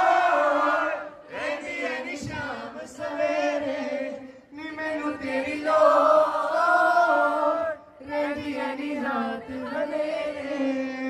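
Live singing through a hall's sound system, in phrases a few seconds long with short breaks, over a steady held low note.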